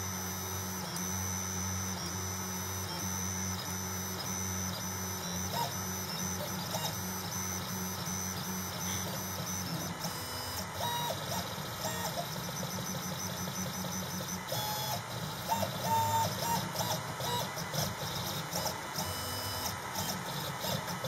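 Desktop 3-axis CNC engraver running a job: a steady machine hum under the whine of its stepper motors, which jumps between pitches in short moves as the axes travel. The moves get busier and a little louder in the second half.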